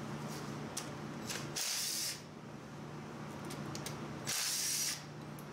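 DeWalt cordless impact driver run in two short bursts, about half a second each, loosening bolts. A steady low hum runs underneath.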